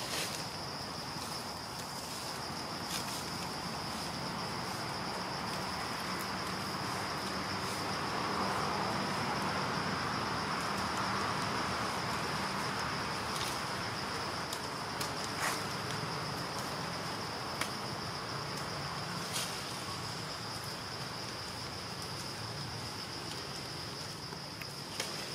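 Insects droning with one steady high-pitched tone, with a few faint clicks scattered through.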